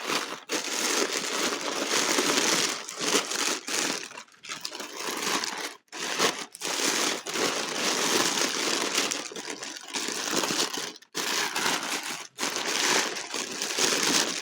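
Packing paper crumpling and rustling almost continuously as it is pulled off and unwrapped from a boxed item, with a few brief pauses.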